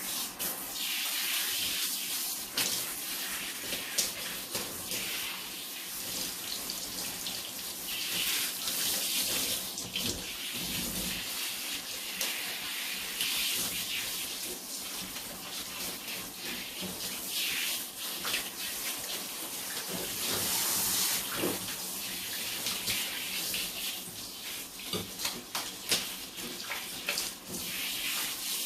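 Tap water running steadily, its splashing swelling louder every few seconds as the stream is broken, with small knocks and clicks in between.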